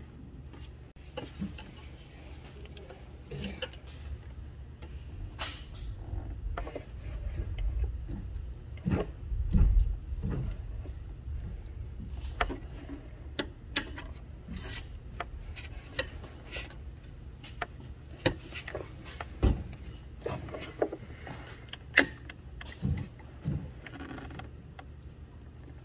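Thin metal tools scraping and clicking inside a metal dipstick tube, probing for a broken-off dipstick stuck inside: a run of irregular sharp clicks. A low rumble swells for a few seconds in the middle.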